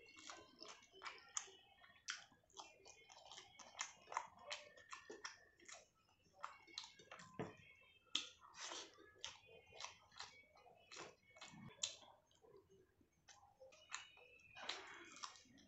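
Close-miked chewing and mouth sounds of a person eating, a dense, irregular run of short clicks.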